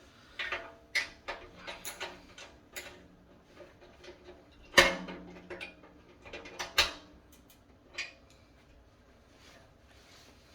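Metal clicks and clanks from a sheet-steel tent stove's legs and bolts being handled and tightened with a socket. The two loudest knocks come about five and seven seconds in, and the steel rings briefly after the first of them.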